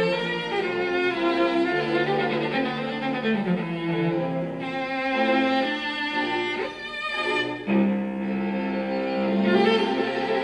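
Background music of long, held bowed-string notes, like cello and violin, moving slowly from note to note.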